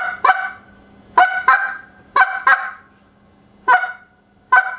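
Reed goose call blown in short clucks, each a quick burst of air that breaks the reed and is cut off sharply. About eight clucks: three quick pairs, then two single ones near the end.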